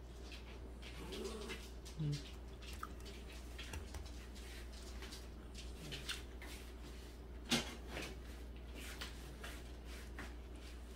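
Quiet eating sounds: toasted sandwich bread being torn and chewed, with small crackly clicks throughout and one sharper click about seven and a half seconds in. A few short low vocal murmurs come near the start and middle, over a steady low hum.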